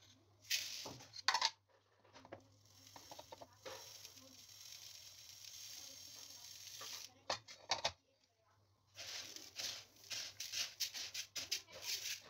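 A couple of knocks from a plastic tub, then dry red lentils poured into a plastic colander of rice: a steady rush of grains lasting several seconds. From about nine seconds in, a hand stirs the rice and lentils together, making a quick run of rustling, clicking grains.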